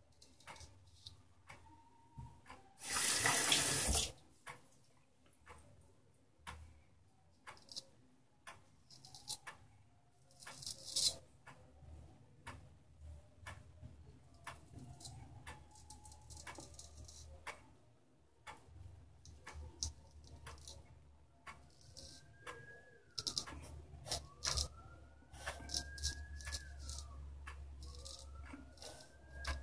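A water tap runs for about a second near the start. Under it, and through the rest, a clock ticks steadily, and now and then a straight razor scrapes through lather on stubble.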